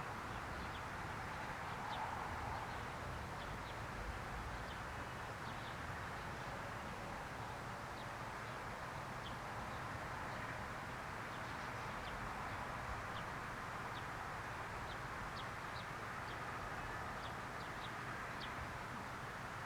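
Short, faint, high bird chirps scattered over steady outdoor background noise, coming more often near the end.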